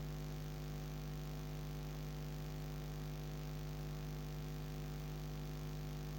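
Steady electrical mains hum, unchanging, with no other sound over it.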